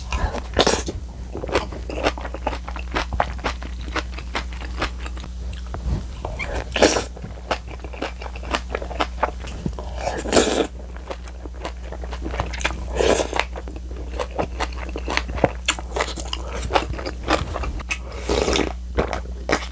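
A person eating crunchy food close to the microphone: dense crunching and chewing clicks, with a handful of louder bites spread through, over a steady low hum.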